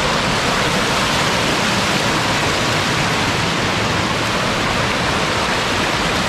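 Mountain stream rushing and splashing over boulders in small cascades close by: a loud, steady rush of water.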